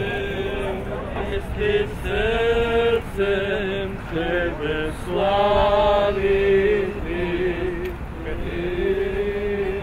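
Male voices chanting an Orthodox Easter hymn: a single melodic line of long held and stepping notes.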